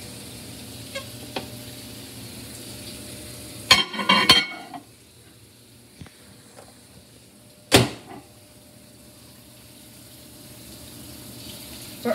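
A ceramic bowl clattering as it is set down inside a microwave, about four seconds in, then the microwave door shut with one sharp knock near eight seconds. A low steady hum runs underneath at first and stops as the bowl goes down.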